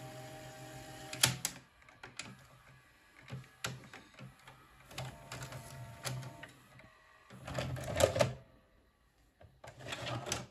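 Akai VS-G205EDG VCR's tape transport running with its cover off. A motor hums at first, then gears and levers click as the mechanism unloads the tape and ejects the cassette, with two louder spells of mechanical noise in the second half.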